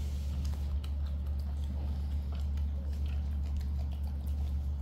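Young macaques eating noodles by hand: soft, scattered chewing and mouth clicks, over a steady low hum.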